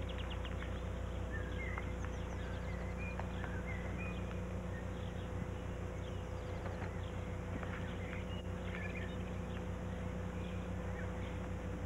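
Outdoor nature ambience: scattered faint bird chirps and twitters over a steady low hum and hiss.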